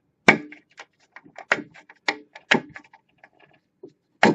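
A run of sharp clicks and knocks, about five strong ones with faint ticks between, from handling a small plastic rocker switch and pushing wire crimp connectors onto its terminals. The loudest knocks come just after the start and near the end.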